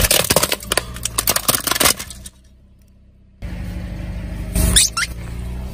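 A car tyre rolls over a hard plastic robot toy, which cracks and snaps rapidly for about two seconds over the low hum of the car's engine. After a short quiet break the engine hum returns, and a short squeak sounds as the tyre presses onto rubber squeeze toys.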